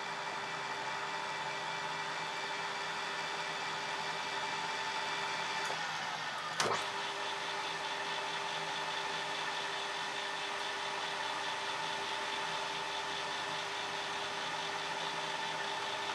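Manual metal lathe running steadily with a machinery hum and several held tones, while a tap held in the tailstock drill chuck power-taps the drilled hole in the bar stock. A single sharp knock comes about six and a half seconds in.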